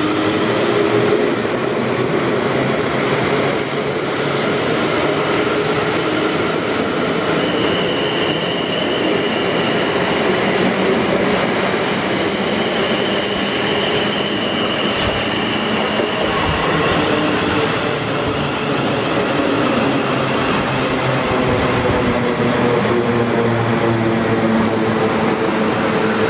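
South Western Railway Class 450 Desiro electric multiple units passing close by on adjacent tracks: continuous wheel-on-rail rumble and clatter with electric traction whine. A high steady whine runs for several seconds in the middle, and lower whining tones slide in pitch near the end.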